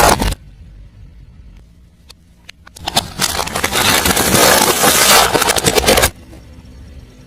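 Car tyre rolling over and crushing brittle objects: a loud crackling crunch that cuts off just after the start, then a lull with a low engine hum and a few small cracks, then a second crunching stretch of about three seconds that stops abruptly.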